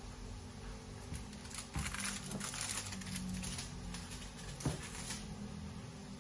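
A foil-lined baking tray with a wire rack being picked up and moved off the counter: foil crinkling with a light knock about two seconds in and another near five seconds.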